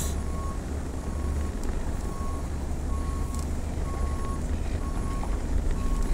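Car's reverse-gear warning beep sounding inside the cabin, short even beeps about once a second, as the vehicle backs up over a low engine and road rumble.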